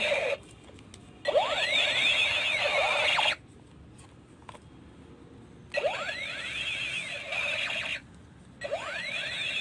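Toy laser gun's electronic shooting sound effect: sweeping tones that rise and fall over each other, in bursts of one to two seconds that start and stop several times with short quiet gaps.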